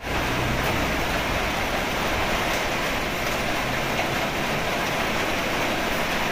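Heavy rain falling steadily, a dense even hiss of drops on the roof and ground.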